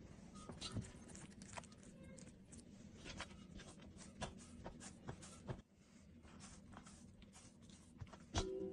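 Fingers rolling oiled paratha dough up against a floured surface: faint, irregular scratching and soft tapping, with one louder knock near the end.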